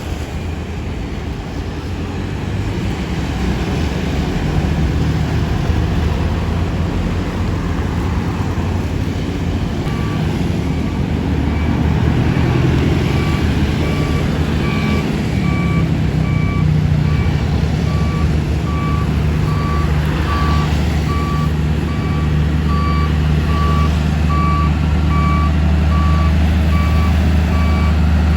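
Dump truck's diesel engine running steadily under load, with its reversing alarm starting about a third of the way in and beeping regularly, a little over one beep a second.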